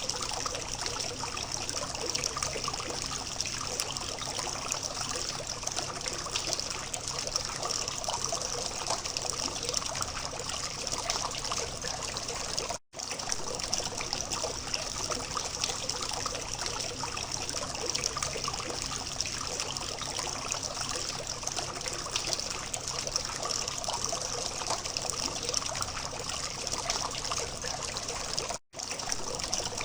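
Water from a small fountain trickling and splashing steadily. It cuts out for an instant twice, about 13 seconds in and near the end.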